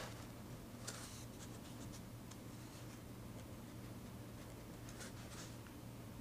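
Handwriting on paper: short scratchy pen strokes in clusters, one about a second in and another around five seconds in, with light ticks between, over a faint steady low hum.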